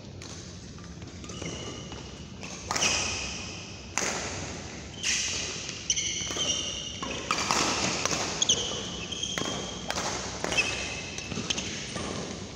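Badminton play: sharp racket smacks on a shuttlecock, roughly one a second, with short high shoe squeaks on the court mat, echoing in a large hall.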